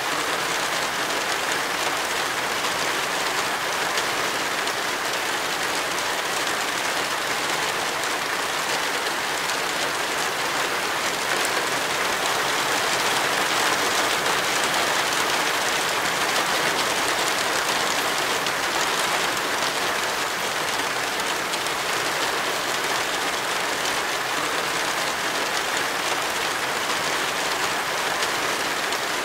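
Heavy rain falling: a steady, dense hiss that does not let up.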